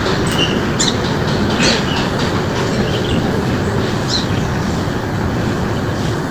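Birds chirping in short, scattered high notes over a steady, loud rushing noise.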